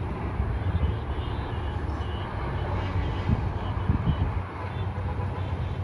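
Low, steady rumble of distant road traffic, cars and trucks passing on the highway below.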